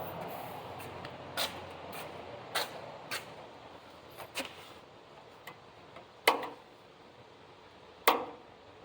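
Scattered sharp clicks and knocks, the two loudest about six and eight seconds in, over a steady hiss that slowly fades.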